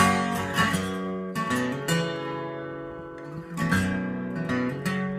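Acoustic guitar strummed in an instrumental break between sung lines: a few sharp chord strokes, each left ringing and fading before the next.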